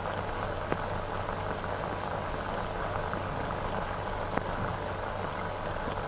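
Steady hiss and low hum of an old film soundtrack, with two short clicks, about a second in and just over four seconds in.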